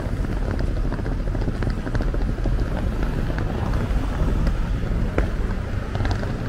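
Street traffic running past, a steady low rumble of vehicles with wind buffeting the microphone.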